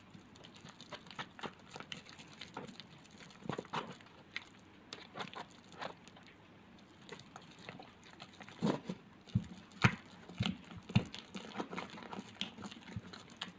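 Fluffy slime of glue and shaving cream being mixed and kneaded by hand as the activator works in, giving irregular sticky squelches and small pops. The busiest, loudest stretch of pops comes about nine to eleven seconds in.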